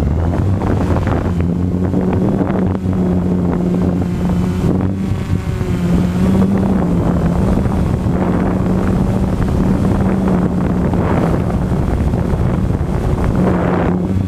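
Quadcopter's four electric motors and propellers buzzing steadily in flight, heard close up from the camera mounted on the craft, with the pitch of the hum wavering slightly as the throttle shifts. Wind and propeller wash rush over the microphone.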